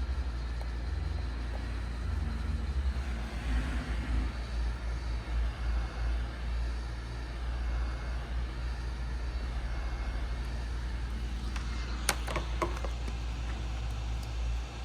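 Hot-air heat gun blowing steadily over a low rumble, softening the adhesive under a phone's back cover. A few sharp clicks about twelve seconds in.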